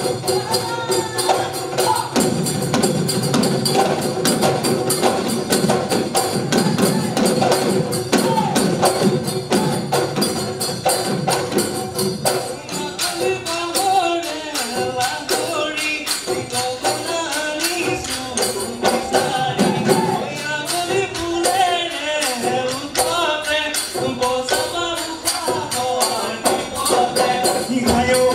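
Live Bihu music: Assamese dhol drums beaten in a fast, dense rhythm with bright jingling percussion. About halfway through, a wavering melody line comes in over the drums.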